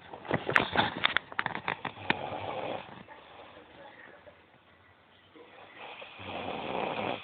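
A cat snoring: a noisy breath crackling with clicks in the first three seconds, a quiet stretch, then another snoring breath swelling up near the end.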